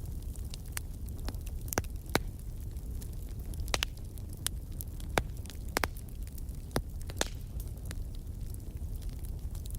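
Wood fire crackling in a fireplace: irregular sharp pops and snaps, a few louder than the rest, over a steady low rumble of the flames.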